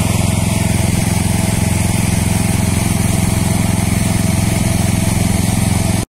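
Engine of a radio-controlled lawn mower running steadily with a fast, even pulse, then cutting off abruptly near the end.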